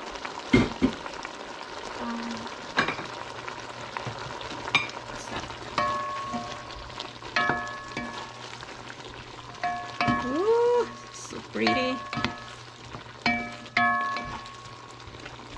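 Wooden spoon stirring chopped vegetables in a cooking pot, knocking against the pot again and again, several knocks ringing briefly, over a faint sizzle from the pot.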